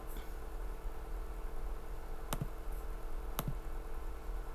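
Two sharp computer mouse clicks about a second apart, over a steady low electrical hum.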